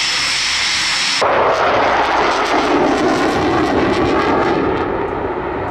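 Eurofighter Typhoon's twin EJ200 turbofans: a loud, high-pitched jet whine and hiss, then about a second in a sudden change to a deep, rushing jet roar as the fighter climbs away on afterburner, easing slightly near the end.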